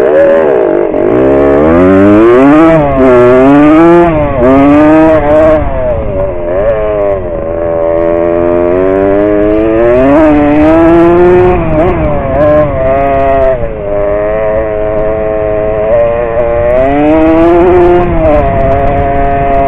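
Dirt bike engine with a straight pipe and no silencer, revving up and falling back over and over. It is loud, and its pitch climbs and drops many times.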